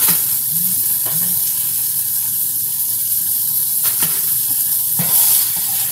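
Breaded chicken breasts sizzling in hot oil in a frying pan, a steady hiss, with a few sharp clicks of metal tongs against the pan as the pieces are lifted out.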